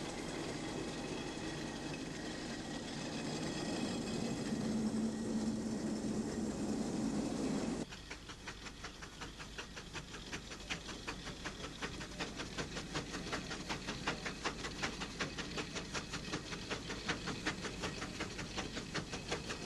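Steam traction engines on the move: first a steady rumble with a low hum, then, after a sudden change about eight seconds in, the regular chuff of a steam engine's exhaust beats, about two or three a second.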